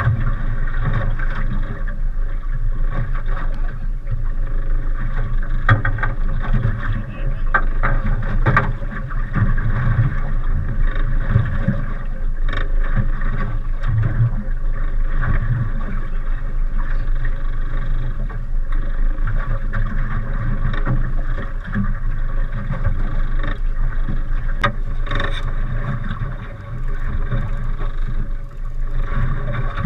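Steady wind and water noise aboard a small boat: a continuous rough rushing on the microphone, with a few sharp knocks here and there.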